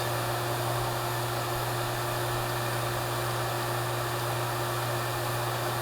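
HVAC vacuum pump running steadily with a constant hum, evacuating an air-conditioning system through a single 1/2-inch hose at a deep vacuum below 250 microns.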